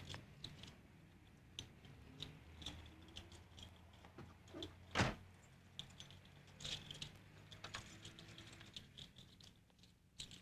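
Keys and a car door being handled: faint scattered clicks and rattles, with one louder knock about five seconds in, over a low steady hum.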